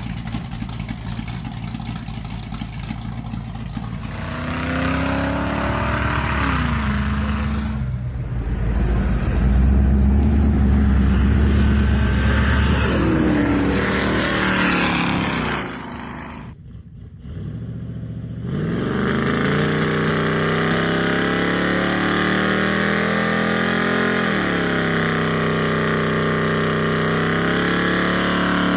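Engine running and being revved, its pitch rising and falling, louder in the middle; it cuts out briefly about 17 seconds in, then runs again with more revs.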